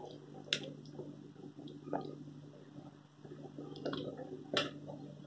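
Thick meatball curry boiling in an aluminium pot: a busy bubbling with a few sharper pops as thick bubbles burst, about half a second, two seconds and four and a half seconds in.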